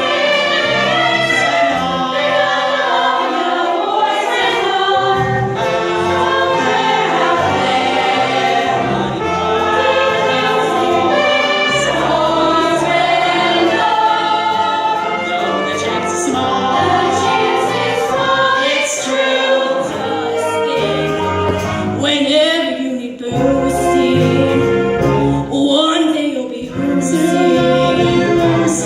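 A chorus of voices singing a song from a stage musical, with a low accompaniment underneath.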